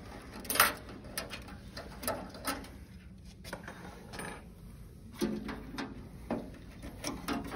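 Scattered light clicks and small metallic rattles as the retaining clips are worked off a Rheem tankless water heater's water control valve and set down on a wooden bench. The loudest click comes about half a second in.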